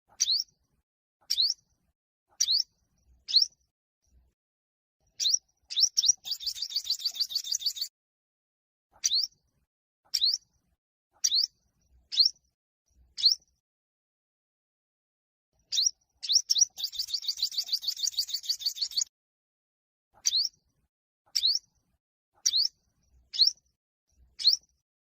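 Olive-backed (yellow-bellied) sunbird singing its territorial fighting song: short, sharp upward chirps about one a second, broken twice by a rapid trill of about two seconds.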